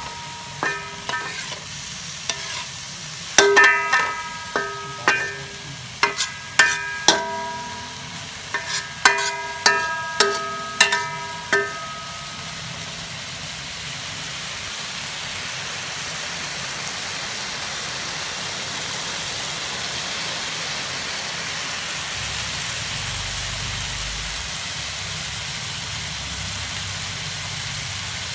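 A metal spatula knocks and scrapes against a metal wok in a stir-fry, each knock ringing briefly, many times over. After about twelve seconds the knocking stops and only the steady sizzle of pork and ginger frying in the wok remains.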